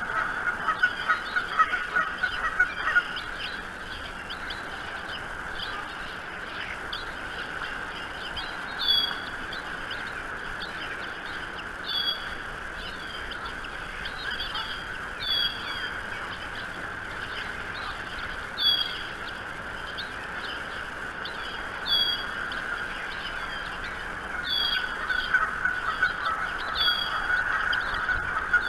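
Bird calls at a bald eagle nest: short, high, rising-and-falling peeps about every three seconds, typical of eaglets begging to be fed. Under them runs a steady chatter of honk-like calls that grows busier near the end.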